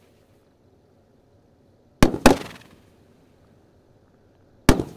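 Large-diameter 2.25-inch firework cake going off: two sharp booms close together about two seconds in and another near the end, each trailing off in a short echo.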